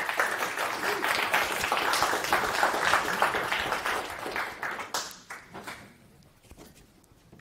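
Audience applause: starts abruptly, holds full for about four seconds, then thins to scattered claps and dies away about six seconds in.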